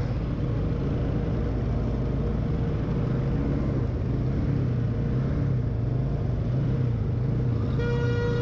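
Motorcycle engines running at low revs, their pitch rising and falling a little, as the bikes wade slowly through floodwater, with a wash of water noise. Near the end a long steady horn note starts and holds.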